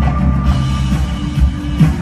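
Loud live band music with a drum-kit beat and heavy bass.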